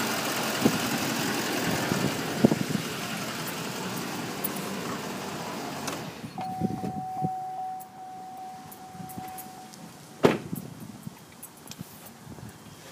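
A 2011 Chevrolet Silverado 2500HD's 6.6-litre Duramax V8 turbo-diesel idling, then shut off about six seconds in. A steady electronic warning tone from the cab follows for a few seconds, then a truck door shuts with a loud bang.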